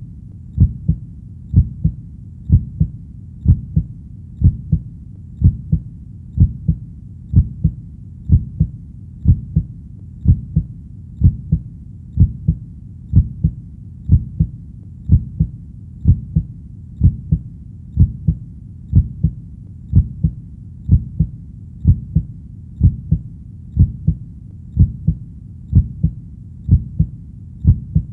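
Heartbeat sound: a steady double 'lub-dub' beat, about one pair a second, deep, over a faint low hum.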